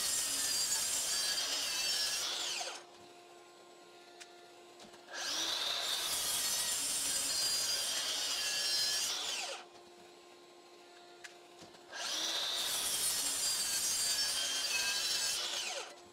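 DeWalt DCS781 60V MAX cordless 12-inch sliding miter saw making cuts: the first cut ends a few seconds in, then two more follow, each about four seconds long. The brushless motor whines up to speed, runs through the cut, and the blade is braked quickly to a stop by its regenerative brake.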